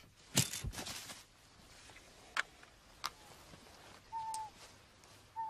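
A sharp click as the eagle trap is fired by radio control, then a brief rushing burst of noise and two small clicks. About four seconds in comes a short whistled call that falls slightly in pitch, and a second one starts near the end.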